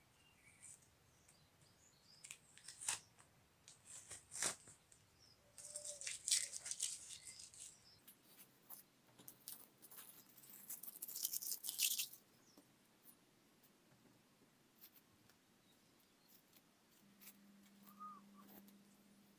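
Upholstery fabric and masking tape being handled on a chair back: light rustling and tearing in two stretches, a few seconds apart, with scattered small clicks in between.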